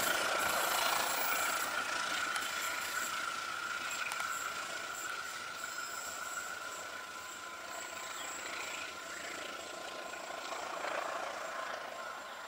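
Passenger train rolling away around a curve, the noise of its wheels on the rails slowly fading, with a steady high-pitched tone running through it.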